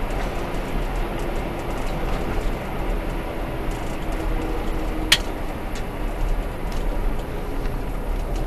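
Steady road noise of a car driving on an asphalt road, heard inside the cabin, with one sharp click about five seconds in.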